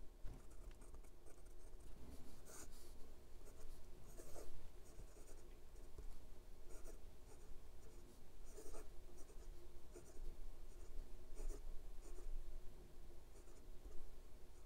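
Steel-nib fountain pen, a Leonardo Momento Zero Grande 2.0, writing on notebook paper: quiet scratching of pen strokes that comes in short bursts, with small pauses between letters and words.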